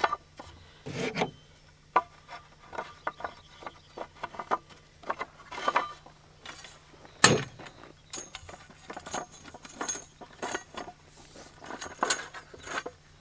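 Steel hooks being slid onto a wooden 2x4 and the rack fitted together: scattered clicks, knocks and scraping of metal on wood, with one sharp knock about seven seconds in.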